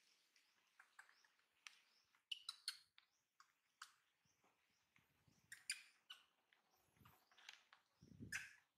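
Faint, brief high-pitched animal chirps and clicks scattered through, with a soft low rumble near the end.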